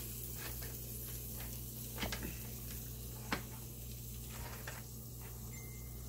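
A few light clicks and knocks of food and utensils being handled in a kitchen, over a steady low hum and a faint hiss.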